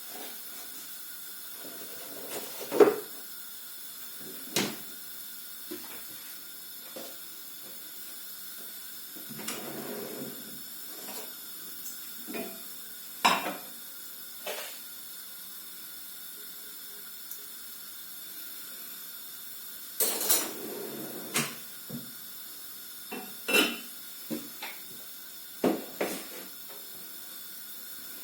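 Kitchen utensil clatter: pots, dishes and cutlery knocking and clinking over a dozen times at irregular moments, over a steady faint hiss.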